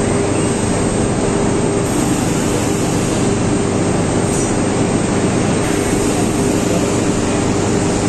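Loud, steady industrial din around a 35-tonne induction melting furnace as its crucible is tilted, with a constant low hum under an even rushing noise.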